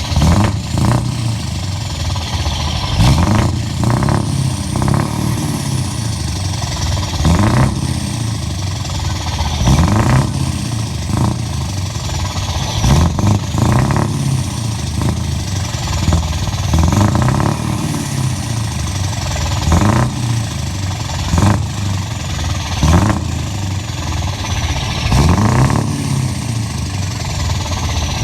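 Trucks with open, straight exhaust pipes running loud and being revved again and again, the engine note rising every second or two. Through it runs a high whistle that falls in pitch over and over.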